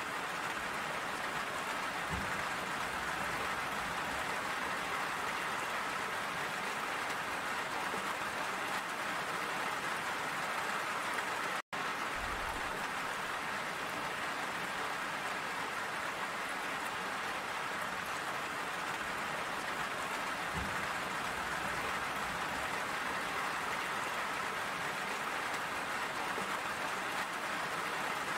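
Steady, even rain. It cuts out for an instant about twelve seconds in, then carries on unchanged.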